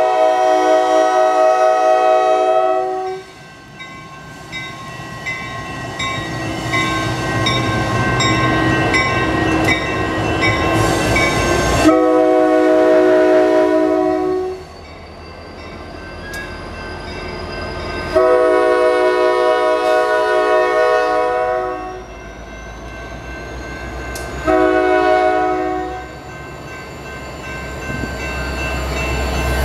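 Horn of a Norfolk Southern EMD SD70 locomotive sounding four times for a grade crossing, the last blast short, as the train comes up to and passes through. Between the blasts the locomotive and the wheel clatter grow louder, and a crossing bell rings.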